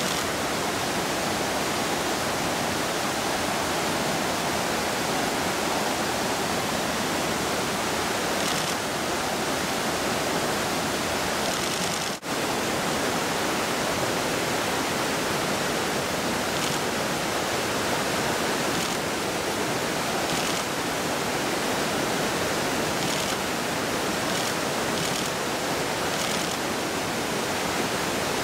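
Steady rush of fast-flowing river water, with a momentary dropout about twelve seconds in.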